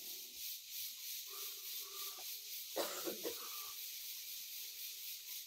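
A steady high hiss with a soft pulsing throughout, under faint distant voices. A brief, louder burst of a person's voice comes about three seconds in.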